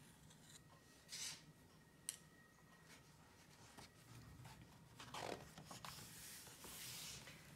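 Faint paper rustling as a picture-book page is turned over and smoothed flat by hand, with a short click about two seconds in.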